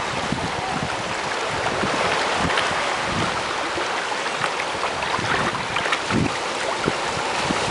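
Steady rush of surf and moving seawater, with wind buffeting the microphone in short low thumps.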